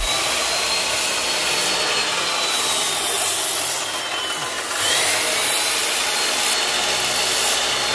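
Abrasive cut-off chop saw cutting through metal strips: a steady grinding hiss over the motor's high whine, which sags and climbs back up about halfway through.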